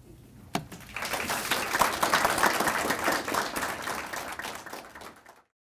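Audience applauding. The clapping starts about a second in and cuts off suddenly near the end.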